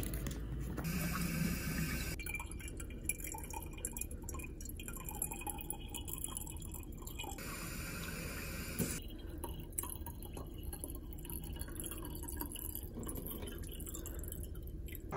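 Water dripping and small clinks, with two brief spells of hiss: one about a second in, the other around the middle.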